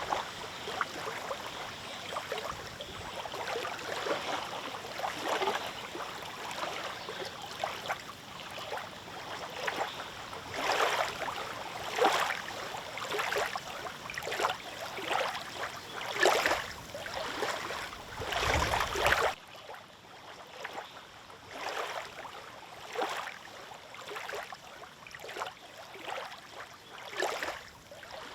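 Small wind-driven waves on a lake lapping and splashing in irregular swells. A brief low rumble of wind on the microphone comes just after the middle, then the lapping continues more softly.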